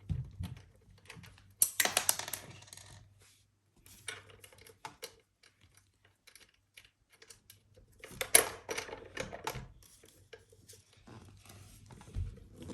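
Small metal bike-assembly hardware being handled: light clicks and clinks, with two busier bursts of clatter, about two seconds in and again around eight seconds in.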